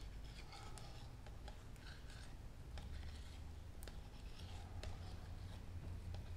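Flat wooden stir stick scraping the last epoxy hardener from a plastic cup into a plastic mixing cup: soft, scratchy scrapes with a few light plastic clicks, over a steady low hum.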